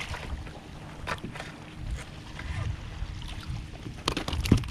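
Handling noises on a plastic sit-on-top kayak: low bumps with some wind on the microphone, then a quick run of sharp knocks near the end.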